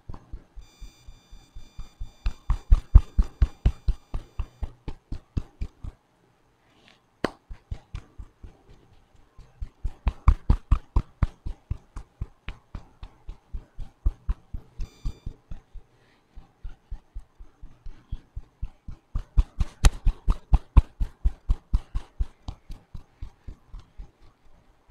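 Rapid, even percussive strikes of a masseuse's hand on the top of a person's oiled head, roughly six a second, in three long runs broken by two short pauses.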